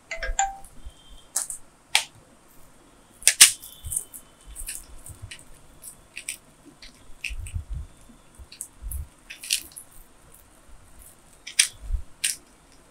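Scattered sharp clicks and light knocks from handling an air rifle and a small plastic container of lead pellets: the lid coming off, pellets picked out and the gun's metal breech parts being worked, with the loudest click about three and a half seconds in.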